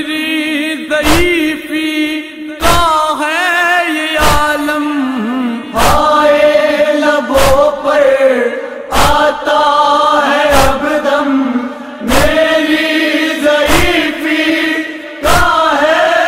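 Voices chanting a noha lament in unison, punctuated by a sharp chest-beating (matam) slap about every one and a half seconds.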